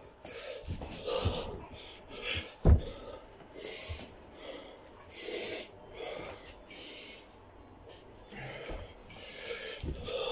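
A man breathing hard from exertion during burpees, with heavy breaths every second or so. A thud about three seconds in and another near the end come from him dropping to the carpeted floor.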